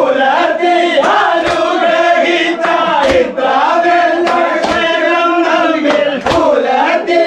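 A group of men singing a Kerala vanchippattu boat song together in a call-like chant, keeping time with sharp hand claps.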